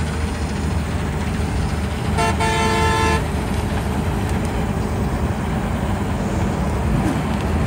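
New Holland combine harvester running steadily as it cuts and threshes barley. A vehicle horn sounds once, for about a second, about two seconds in.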